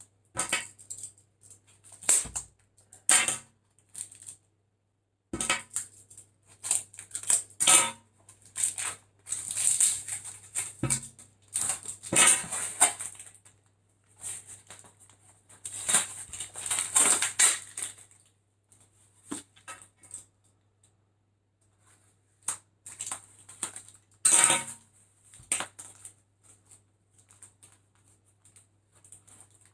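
Packing tape being peeled off a corrugated cardboard box, with the cardboard crackling and rustling as it is handled. It comes in irregular bursts, the longest a second or two each.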